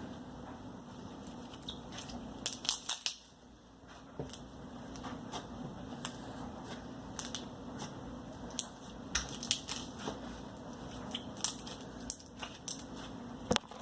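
Glitter slime being kneaded and poked by hand, giving irregular sticky clicks and pops, some in quick clusters, over a steady low hum.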